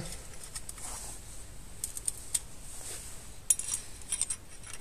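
Light metallic clicks and clinks of a steel clutch plate being slid onto the clutch basket and hub of a Yamaha XJ 600 among the friction plates. The clicks are scattered, with a short cluster of them near the end.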